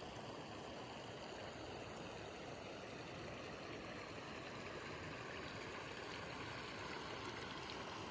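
Steady, even rushing of flowing water, like a mountain stream, with no breaks or separate events.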